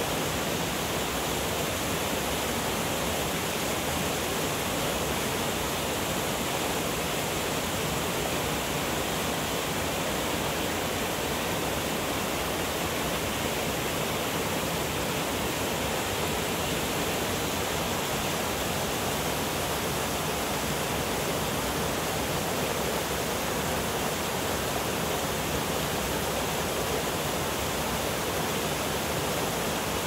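Mountain stream cascading over rocks, a steady rush of water.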